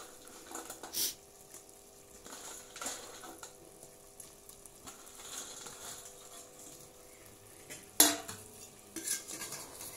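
Quiet kitchen sounds as fried paneer pieces are dropped into a pot of simmering rice and water, with soft clinks of metal. One sharp metal clank near the end.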